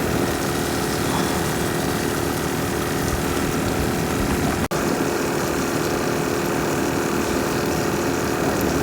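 A boat engine running steadily, a droning hum over wind noise on the microphone. The sound cuts out for an instant about halfway through.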